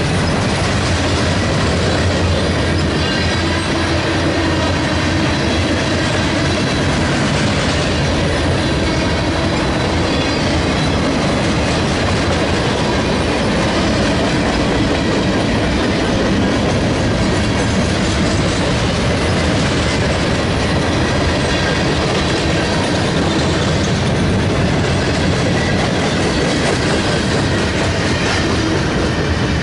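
Train passing steadily, with the continuous noise of its wheels running on the rails.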